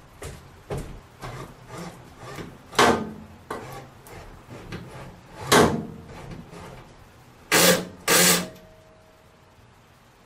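Hand tools knocking and scraping while a screw is worked into a T-nut set in wood: a series of light knocks and rubs with four loud sharp knocks, the last two close together, then quiet.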